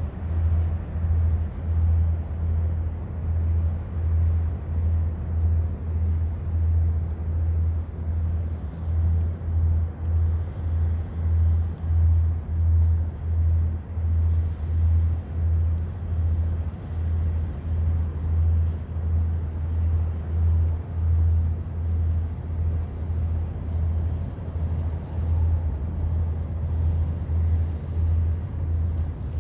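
Low thumps repeat evenly about twice a second, in step with walking: footfalls jolting a handheld camera's microphone. Underneath is a steady low outdoor rumble.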